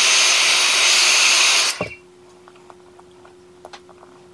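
Heat gun blowing hot air on the GoPro Hero 8 to soften the old lens adhesive, switched off about two seconds in and winding down quickly. After that come a few faint small clicks of tweezers picking at the adhesive, over a faint steady hum.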